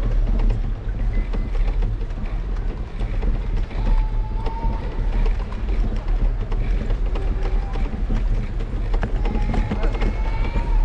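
Steady rumble of a bicycle ride on city streets: wind on the microphone and road noise, with a few brief higher tones now and then.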